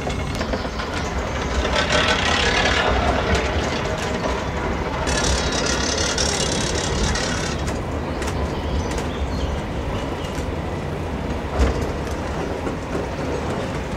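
A 1906 Von Roll funicular car running on its rails, with a steady rumble and rattle of its wheels. A hissing stretch comes from about five to seven and a half seconds in, and there is a single knock near the end.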